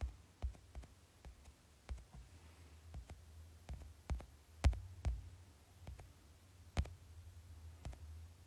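Irregular soft taps and knocks of fingers handling a smartphone held close, about a dozen at uneven intervals, over a steady low hum.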